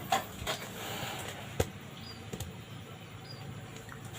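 A few light clicks and taps over a steady low hum. The sharpest click comes about a second and a half in.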